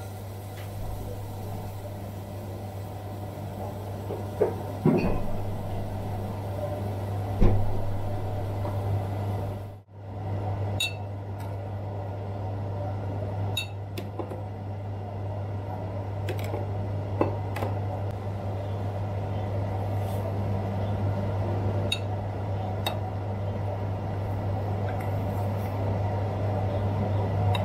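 Kitchen utensil sounds: a spoon and spatula clinking and scraping against a glass bowl and pots, with a couple of louder knocks early on and scattered light clicks, over a steady low hum. The sound drops out briefly about ten seconds in.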